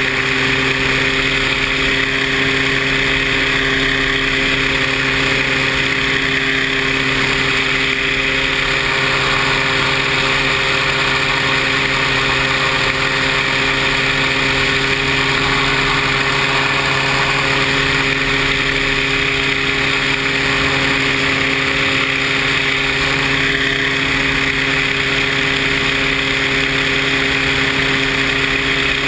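Paramotor engine and propeller running at a steady throttle, one even drone with no change in pitch.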